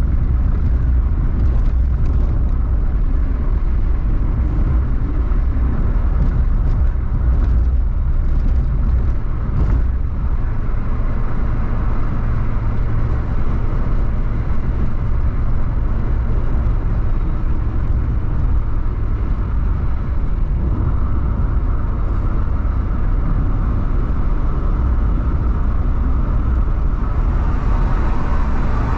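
Steady low rumble of a car driving, heard from inside the cabin: engine drone and tyre noise on the asphalt, without changes in pitch.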